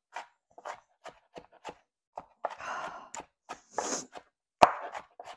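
Kitchen knife chopping an onion on a cutting board: short sharp chops at an uneven pace of two or three a second. The loudest is a hard knock about four and a half seconds in. In the middle come two long breathy breaths from the cook, whose eyes and nose are stung by the spicy onion.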